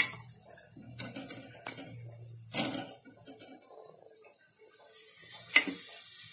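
Hot oil sizzling steadily in a kadhai as fried bread pakoras are lifted out with a slotted metal spoon, which clinks against the pan and a steel plate several times, sharpest at the very start and again about two and a half and five and a half seconds in.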